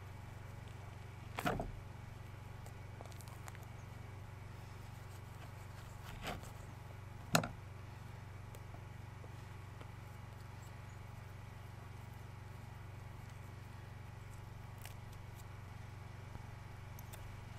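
A steady low engine hum, with three brief sharp knocks about a second and a half, six and seven and a half seconds in; the first and last knocks are the loudest.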